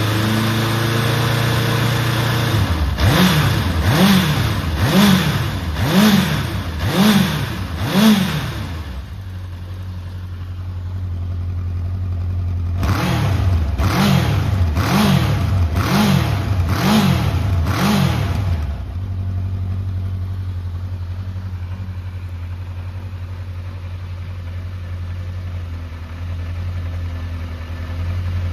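Honda CB750F's air-cooled inline-four engine idling, blipped by the throttle six times about once a second, settling back to idle, then blipped six more times and returning to a steady idle. The seller presents it as running well, with no abnormal noises.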